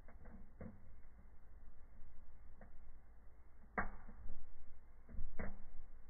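Fireplace fire burning cardboard, crackling under a low steady rumble with scattered pops. The loudest pop comes a little before four seconds in, and two more come close together near the end.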